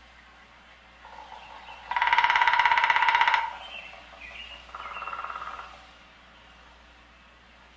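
Woodpecker drumming on wood: two fast rolls of taps, the first loud and about a second and a half long, the second quieter and shorter, with faint chirps between them.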